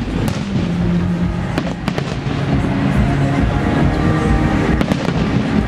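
Fireworks going off: sharp bangs and crackles of bursting shells, a cluster about two seconds in and another pair near the end, over music with held low notes.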